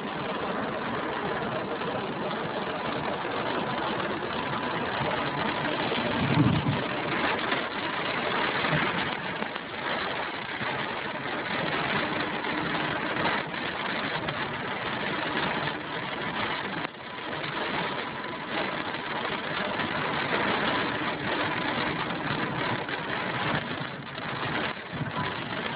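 Steady engine and road noise inside a car driving along, with a brief low thump about six seconds in.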